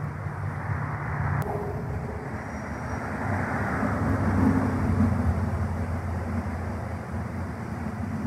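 Steady background engine rumble over a rushing noise, with a low hum that swells and rises slightly in pitch around the middle.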